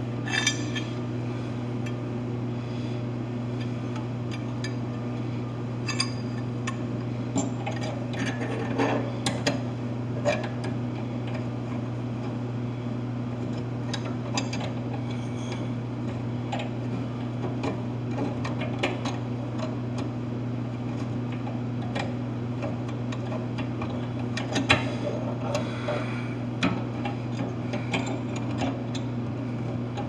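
Scattered light metallic clinks and knocks of hands and fittings at the drain of a stainless steel drinking fountain, over a steady low hum.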